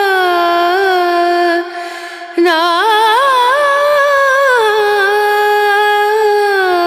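Background music: a solo voice singing long held notes on drawn-out syllables, with wavering ornaments on the pitch. It breaks off briefly about two seconds in, then resumes with a run of bending notes and settles onto a long held tone.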